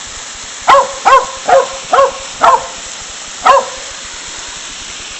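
A dog barking six times in quick succession, short sharp barks, over the steady rush of a waterfall.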